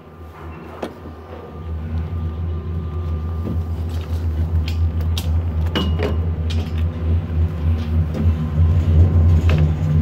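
Doppelmayr cabriolet gondola cabin running along its haul rope: a low mechanical rumble that builds and grows loud, with scattered clicks and a brief clatter about six seconds in as the cabin runs past a lift tower and its sheaves.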